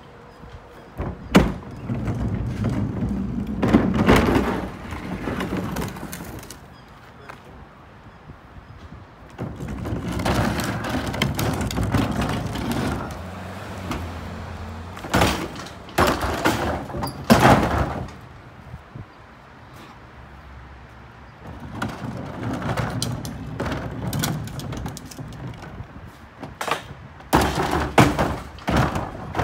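Empty plastic wheeled recycling carts being rolled over pavement and lifted onto a steel-mesh utility trailer, with stretches of wheel rumble and several loud bangs and thuds as the carts hit the trailer and each other, bunched in the middle and near the end.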